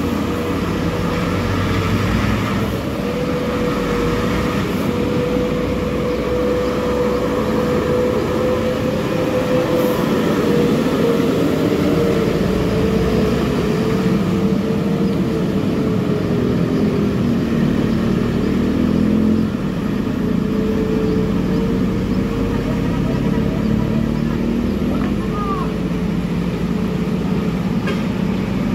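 Mercedes-Benz heavy truck's diesel engine pulling hard in a low gear as it climbs a steep hairpin, with a steady whining tone over the engine.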